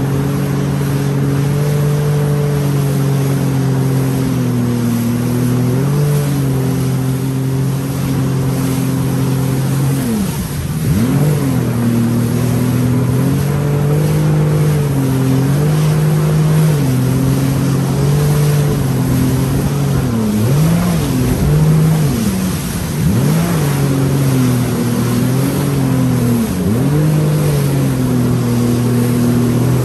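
Jet ski engine running at cruising speed over a hiss of water and wind, its pitch holding steady, then dipping and climbing again as the throttle eases and opens, about a third of the way in and several times near two-thirds of the way through.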